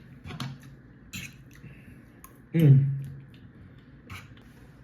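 Close-up mouth sounds of someone eating: a few short wet clicks and smacks, and one short hummed "mm", falling in pitch, about halfway through.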